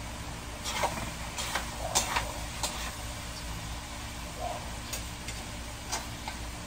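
Metal spatula knocking and scraping against a wok as food is stirred: a few irregular sharp clicks over a steady low hum.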